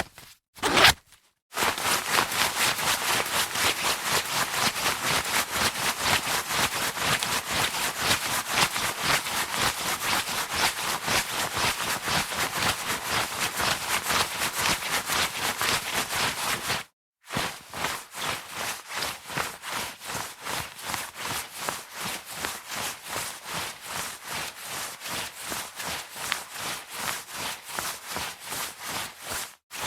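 Jacket fabric rustling in a fast, regular rhythm, about three swishes a second, in two long runs with a short break between them, the second a little quieter.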